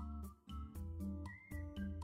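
Background music with a steady beat: bass notes, a melody on top and light ticking percussion.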